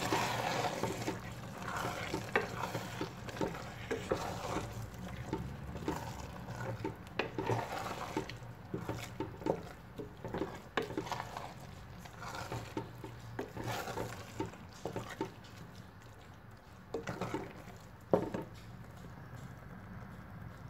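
Wooden spoon stirring a thick stew of maize, beans and greens in a stainless-steel pot, with irregular scrapes and knocks against the pot's sides and bottom. The pot is simmering on the heat underneath.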